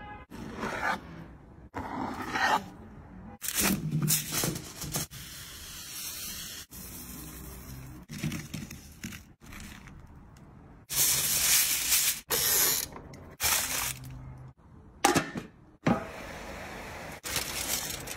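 A string of short, cut-together food-preparation sounds: hissing, rustling and scraping as food and seasonings are handled. The loudest hiss comes a little past the middle.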